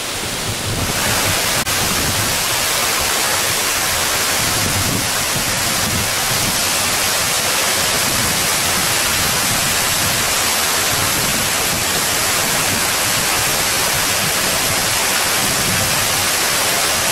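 Memorial fountain water falling in a curtain of thin streams and splashing into a pool: a steady, loud rushing hiss that fills out about a second in.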